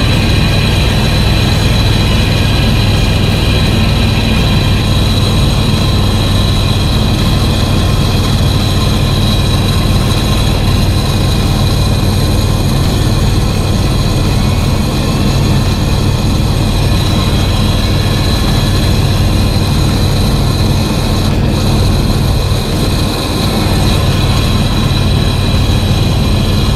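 The 23-year-old American full-size van's engine running with a steady shara-shara (gara-gara) rattle, which the owner, listening through a screwdriver used as a stethoscope, puts down to a failing water pump.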